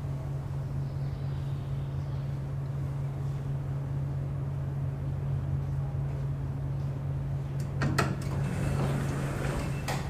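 Steady low machinery hum; about eight seconds in, a sharp clunk and the rattle of passenger elevator doors sliding open.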